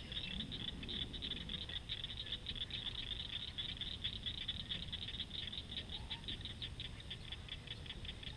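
A calling animal at the water's edge: a steady, rapid train of high-pitched clicks, about six a second, spacing out slightly toward the end.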